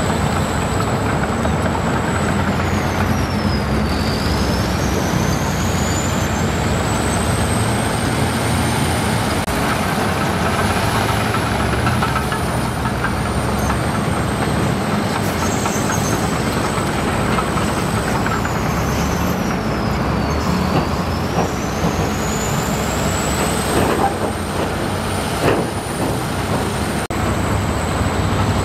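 Heavy diesel construction machine running under steady load, with a high whine that dips sharply twice and climbs slowly back. A few sharp clanks near the end.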